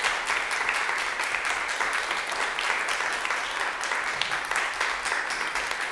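A small audience applauding, a steady stream of many hand claps.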